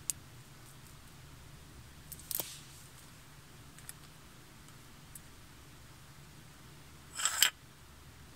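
Small items being handled by hand: a faint click at the start, a few light clicks about two and a half seconds in, and a short rustle a little after seven seconds, over a low steady room hum.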